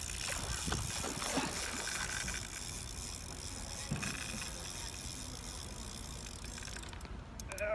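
Shimano Stella 14000 spinning reel's drag clicking steadily as a large tuna strips line from it, even with the drag set near fully locked.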